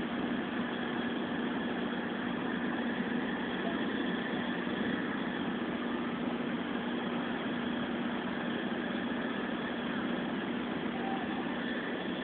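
Heavy machinery running steadily, a constant engine-like hum with one low tone that does not change.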